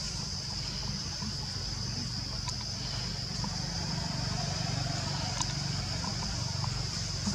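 Outdoor ambience: a steady high-pitched drone over a low rumble that grows a little louder about halfway through, with a few faint ticks.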